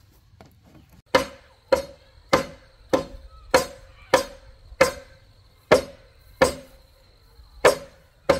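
A hand tool striking bamboo eleven times at a steady work pace, roughly one blow every two-thirds of a second with a couple of slightly longer gaps. Each blow rings briefly.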